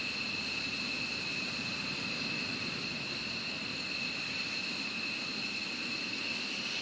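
F-15E Strike Eagle jet engines idling: a steady rush with a high, steady two-note turbine whine over it.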